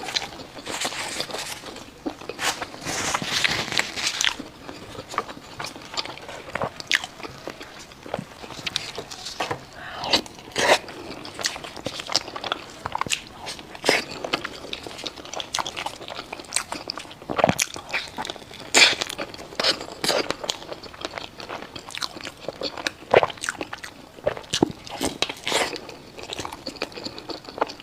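Close-miked eating: a person biting and chewing crunchy food, with repeated sharp crunches and crackles.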